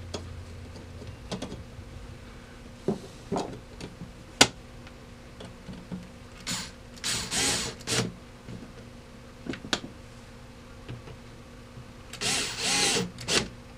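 Small cordless electric screwdriver driving screws into the metal back plate of a gumball vending mechanism in two short whirring runs, about six and twelve seconds in. It is a low-torque driver that stops short of stripping the screws. Before the first run there are a few light clicks of parts being handled.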